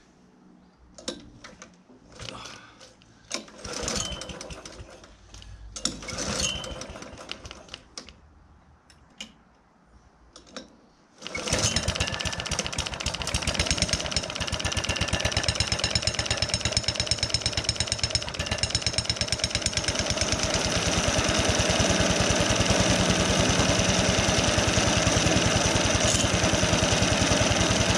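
Cold start of a 1960 Ransomes Marquis cylinder mower's petrol engine after three months standing: several short bursts of cranking and coughing, then it catches about eleven seconds in and runs steadily on a little choke, a touch louder after about twenty seconds.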